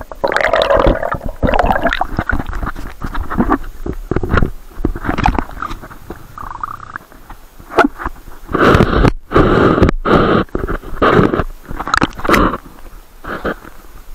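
Water splashing and sloshing irregularly against a camera that is dipped under a river's surface and lifted out again.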